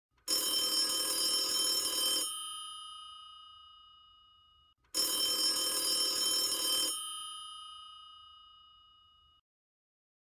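Old rotary-dial telephone's bell ringing twice, each ring about two seconds long, the bell's tone dying away for a couple of seconds after each ring.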